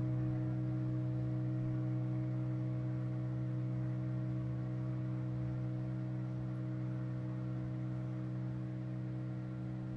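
A boat's motor running at a steady pitch, a constant hum with a rough rumble beneath it.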